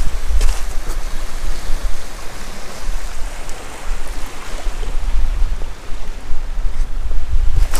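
Gale-force wind buffeting the microphone in a loud, gusting rumble, over a steady hiss of wind and surf.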